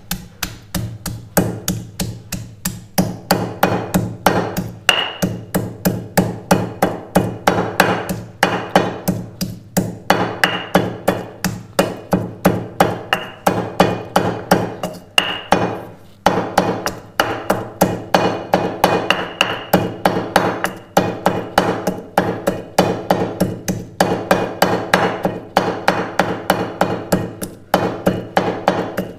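Marble pestle pounding in a marble mortar, a quick steady run of stone-on-stone strokes, several a second, with brief pauses, as ginger is crushed into a wet paste with garlic, green chilli and pomegranate seed.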